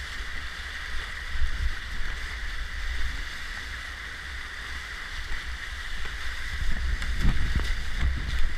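Whitewater rushing steadily around a kayak surfing a river wave, with heavy low rumble on the microphone. Louder splashes come about seven to eight seconds in as the bow drops into the foam.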